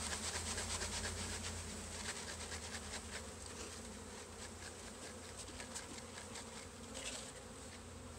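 Buzzing of a mass of honeybees being shaken out of a wooden package box into a hive, with a rapid run of light knocks and taps. The knocks are dense over the first few seconds, then fewer, and the buzzing settles slightly quieter.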